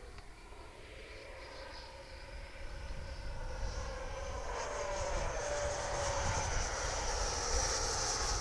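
Electric ducted fan of an RC jet, a Wemotec 90 fan unit, whining as the model flies past. It grows louder from about three seconds in and is loudest near the end, with a high whine.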